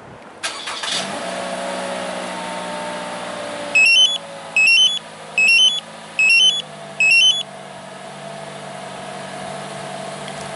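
A 2017 Toyota RAV4's engine cranks briefly and starts on a remote start, then idles steadily, settling a little lower about six seconds in. Five short electronic chirps, each a quick stepped rise in pitch about a second apart, come from the Compustar two-way remote confirming the start.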